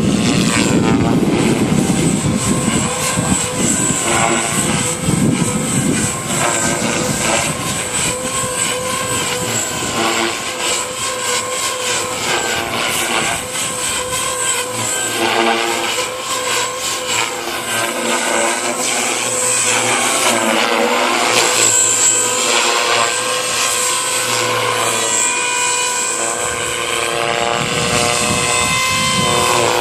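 JR Forza 450 electric radio-controlled helicopter in flight, its motor and rotor whine shifting up and down in pitch as it manoeuvres. Wind buffets the microphone near the start and end.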